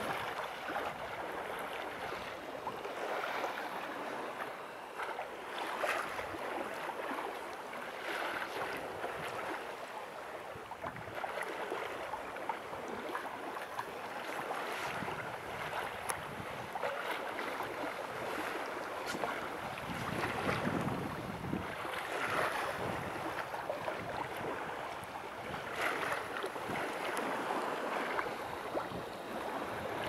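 Water rushing and splashing along the hull of a sailing yacht under way, mixed with wind on the microphone. The sound swells and eases in surges every few seconds.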